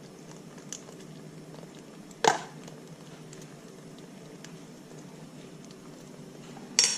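Kitchen utensils being handled: a sharp knock about two seconds in and a clatter of utensil on dish near the end, over a faint steady hiss.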